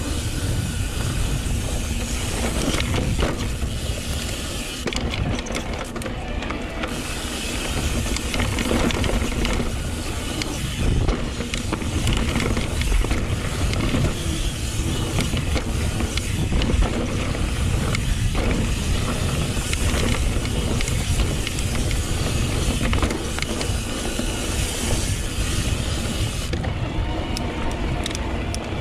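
Wind rushing over an action camera's microphone and the rumble of mountain bike tyres rolling over dirt singletrack, with frequent knocks and rattles from a YT Decoy electric mountain bike riding rough ground.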